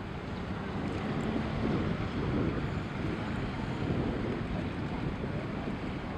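Wind blowing on the microphone over a steady low rumble of river and boat traffic, with a faint steady engine hum for about the first two seconds.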